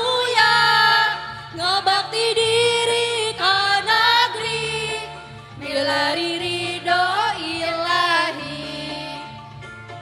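Women's choir singing a song in Sundanese over a steady low instrumental backing, the singing easing off near the end.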